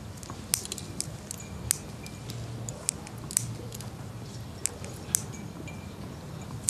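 Quiet tennis-court ambience between points: a steady low hum under about eight scattered, irregular sharp clicks.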